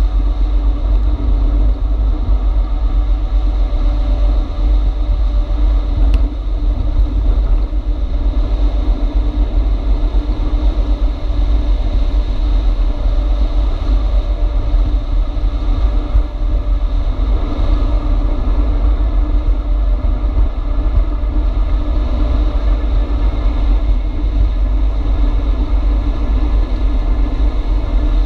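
Steady wind rushing and buffeting over the microphone of a camera on a moving e-bike, with road noise and a steady low hum underneath.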